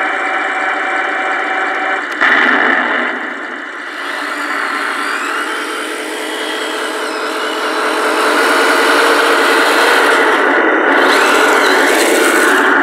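Tamiya 1/16 radio-controlled Sherman Easy Eight model tank driving on asphalt: the steady mechanical running of its motors, gearboxes and tracks, with a sudden change about two seconds in, getting louder in the second half as it comes close.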